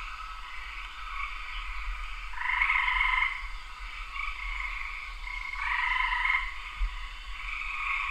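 A chorus of frogs trilling, with two louder calls of about a second each, about two and a half seconds in and again about six seconds in.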